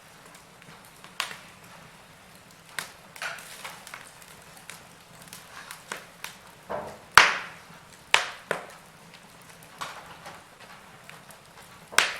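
Wood fire crackling in a fireplace: irregular sharp pops and snaps over a faint steady hiss, the loudest pop about seven seconds in.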